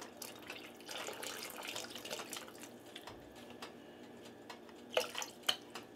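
Beef broth poured from a carton into a pot of broth and vegetables: a steady splashing trickle of liquid into liquid that stops about three seconds in. Two light knocks follow near the end.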